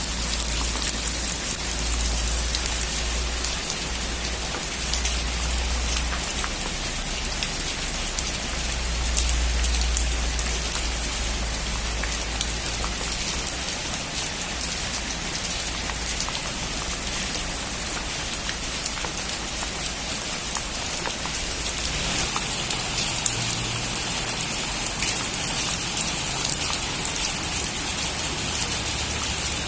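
Heavy rain pattering on a metal roof: a steady hiss of many fine drop impacts, growing brighter and hissier about two-thirds of the way through.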